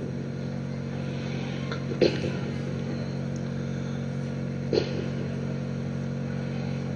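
Steady electrical hum of several low tones, broken by two brief sharp sounds, about two seconds in and again near five seconds.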